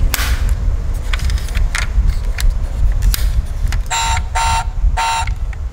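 Toy car horn sound effect: three short electronic toots about four seconds in, over a steady low engine-like rumble, with scattered clicks of the model being handled.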